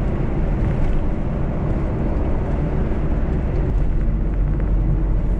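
Cab-over camper motorhome driving on an expressway, heard from inside the cab: a steady low drone of engine and road noise.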